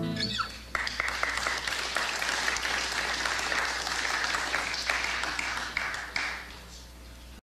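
An audience clapping after a song ends, just after the last acoustic guitar chord dies away. The applause thins out near the end and cuts off abruptly.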